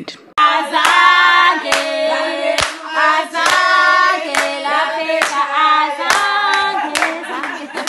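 A group of voices singing together with hand claps on the beat, about one clap a second.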